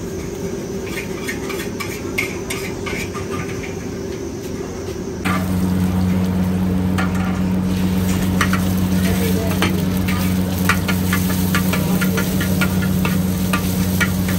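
An egg frying and being scrambled in a wok: sizzling, with a metal spatula scraping and tapping against the wok many times a second over a steady low hum. It starts abruptly about five seconds in; before that there is only quieter stall background with a few light clicks.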